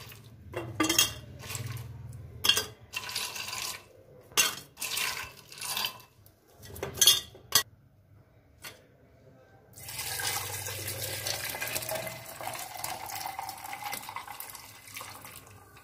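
Ice cubes dropped into a glass jug, a run of sharp clinks. Then, about ten seconds in, tamarind water is poured from an enamel pot into the jug over the ice in a steady stream, tailing off near the end.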